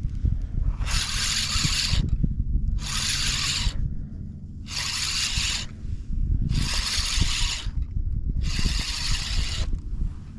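A fishing reel being cranked in short spells of about a second, roughly every two seconds, as a hooked fish is reeled in, over a steady low rumble.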